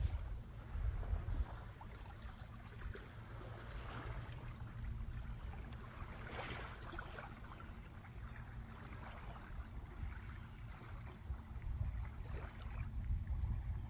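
A steady high-pitched insect trill of rapid, even pulses, which stops near the end, over a low rumble.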